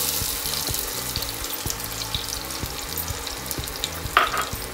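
Chopped onions tipped into hot oil in a pressure cooker, sizzling loudly as they hit the oil and then frying on more quietly. A short clatter about four seconds in.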